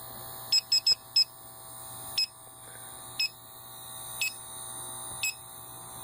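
Electronic refrigerant leak detector beeping as it sniffs an air conditioner's evaporator coil: a quick run of four short beeps about half a second in, then single beeps about once a second. The beeping is the detector going off on leaking R22 refrigerant just inside the coil.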